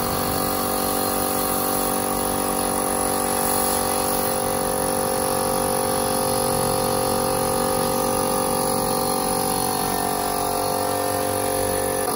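Crown CT36029 2 HP oil-lubricated piston air compressor running steadily, its motor and pump charging the 50-litre tank with air just after start-up. It gives an even mechanical hum with several steady tones and no change in level.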